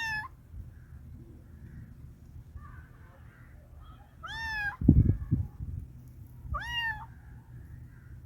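A cat meowing: three short, high meows that rise and then fall in pitch, one right at the start, one about four seconds in and one about six and a half seconds in. Just after the second meow comes a brief low thumping, the loudest sound, over a steady low hum.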